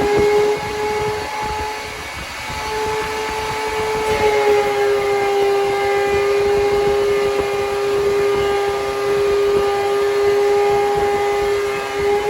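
DeWalt DW735X thickness planer running with a steady whine from its motor and cutterhead. About four seconds in the pitch sags slightly and holds lower, as the planer takes the load of a 2x4 being fed through and planed.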